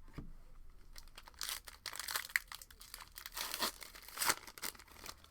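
A trading card pack wrapper being torn open and crinkled, in several crackly rustling spurts, loudest about two seconds in and again near four seconds.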